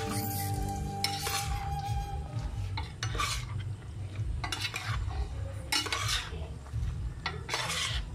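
A slotted metal spoon stirring and tossing noodles in a wok, with a scrape against the pan at each stroke, about six times, over a low steady rumble.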